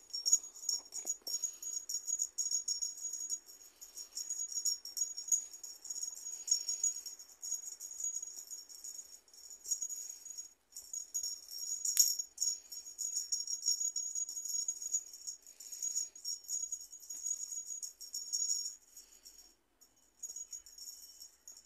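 Small jingle bell on a dangling cat wand toy, jingling irregularly as kittens bat at it. About halfway through there is a single sharp click.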